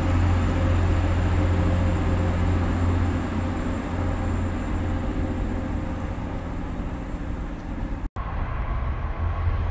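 Class 185 diesel multiple unit's Cummins engines running under power as it pulls away, a steady low drone that gradually fades as the train draws off. The sound breaks off abruptly near the end at an edit, giving way to different, quieter background noise.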